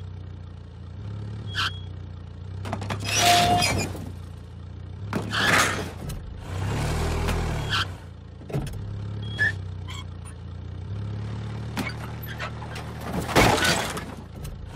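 A car engine running and revving in spurts as it reverses with a boat trailer in tow, broken by several loud crashes and scrapes, the biggest a few seconds before the end as the car goes over onto the rocks.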